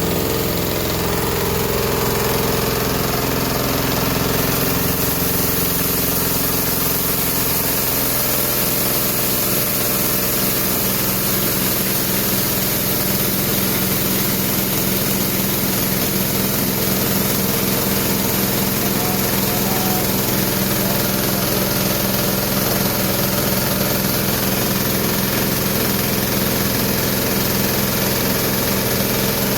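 Rice-husk grinding mill running steadily under load, grinding dried corn kernels into flour: a continuous mechanical drone with a steady low hum.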